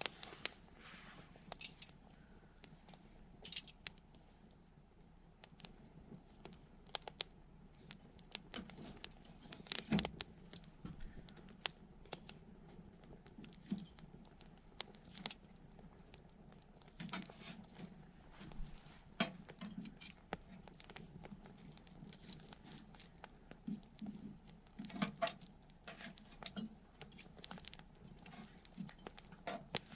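Wood campfire crackling: irregular sharp pops and snaps, with a denser cluster of louder pops about ten seconds in, over a faint steady hiss of burning.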